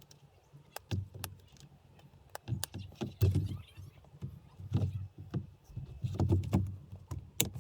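Scattered sharp clicks and dull knocks of parts being handled and pressed into place at a steering wheel, irregular and busier toward the end.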